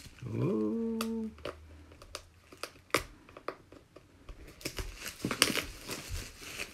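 Cellophane wrap crinkling and crackling as it is peeled and pulled off a hard box, in scattered clicks that grow busier near the end. About half a second in, a brief hummed voice sound.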